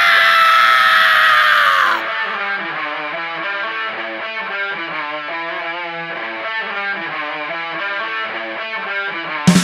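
Instrumental intro of a rock song. A loud, distorted held chord sags slightly in pitch and cuts off about two seconds in. A picked electric guitar line of quick stepped notes follows, and drums come in near the end.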